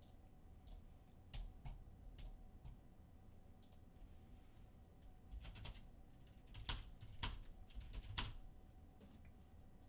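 Faint, irregular clicking at a computer, about ten sharp clicks unevenly spaced, as a randomize button is clicked repeatedly to shuffle a list of names.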